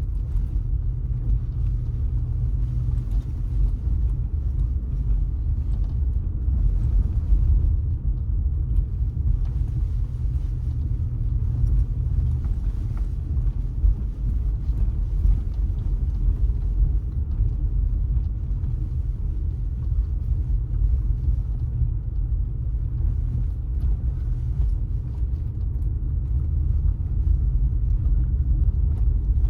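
Steady low rumble of a car driving along a road, heard from the driving car: engine and tyre noise with no sharp events.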